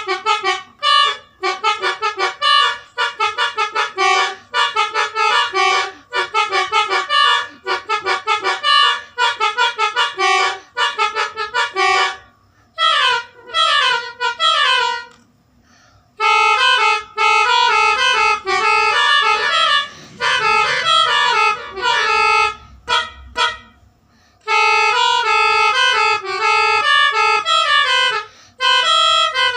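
Loud multi-trumpet horn set with twelve horns, telolet style, playing a fast tune of short, quickly changing notes, with a few brief pauses between phrases.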